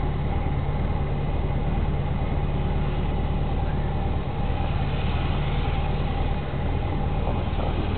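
Vintage Volkswagen's engine running steadily at low revs as the car rolls slowly, heard from inside the cabin.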